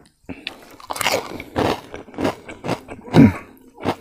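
Close-up chewing and crunching of crispy fried pork rinds, a run of sharp crackly crunches with the loudest about three seconds in.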